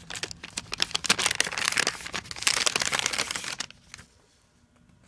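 Thin plastic bag crinkling and crackling as a wristwatch is pulled out of it. The crinkling stops about three and a half seconds in.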